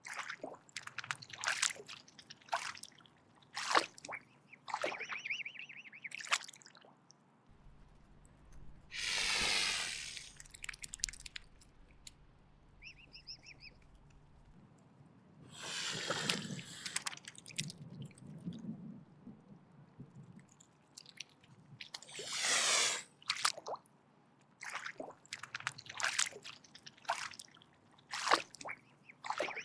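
Mute swan hissing: three long breathy hisses, each a second or two, about a third of the way in, past the middle, and near three-quarters, with many short wet clicks in between.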